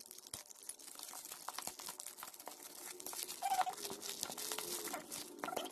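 Plastic courier pouch crinkling as it is picked at and pulled open by hand, a dense run of small irregular crackles that grows louder about three seconds in.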